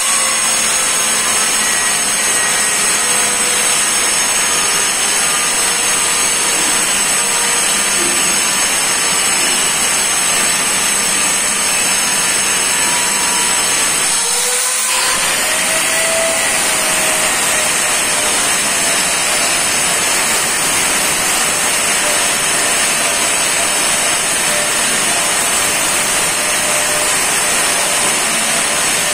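Electric angle grinder running, grinding and finishing the edge of a granite slab: a loud, steady grinding noise with a high whine. About halfway through the whine breaks off briefly and comes back rising as the disc spins up again.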